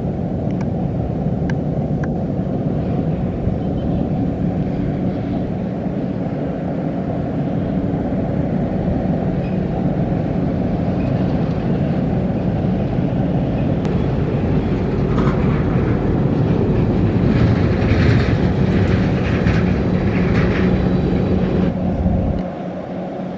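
Kubota DC-93 combine harvester's four-cylinder turbo diesel running steadily under load, with a constant low hum. Past the middle a harsher, rattling hiss joins and the sound grows louder for several seconds; near the end the low rumble drops off suddenly.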